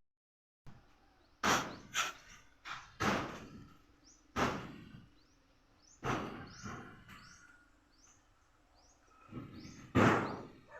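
A hammer striking wood, about eight sharp blows at irregular intervals with pauses between them, the longest in the second half. Faint bird chirps sound in the gaps.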